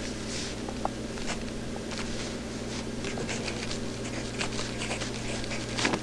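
Mechanical pencil, a Zebra M402, writing on lined spiral-notebook paper: faint, irregular scratching strokes over a steady low hum and tape hiss.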